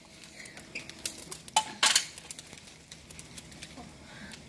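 Burning charcoal in a sheet-metal box grill crackling, with irregular sharp snaps and pops as the lumps spit sparks; the loudest pops come about a second and a half to two seconds in.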